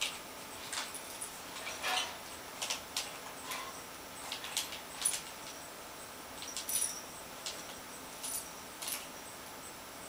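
Faint jingle bell on a homemade cardboard cat toy, jingling in short, irregular shakes as a cat bats at it on the carpet.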